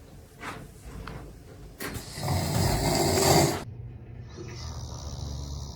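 A man snoring in his sleep: a few faint breaths, then about two seconds in one loud, harsh, rasping snore lasting nearly two seconds.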